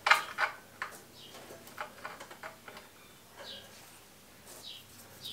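Light metal clicks and knocks from exhaust parts being handled and fitted on a small engine by hand: a few sharp ones in the first second, then scattered faint ticks. A few short, high, falling chirps come through now and then.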